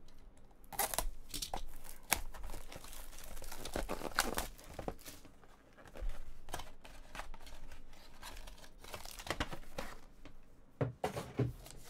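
Trading-card packaging being torn open and crinkled by hand: an irregular run of tearing and crinkling with scattered sharp clicks.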